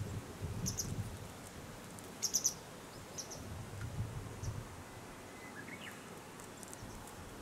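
Small birds chirping, short high calls in a few brief clusters, the loudest about two seconds in, over a low rumble that comes and goes.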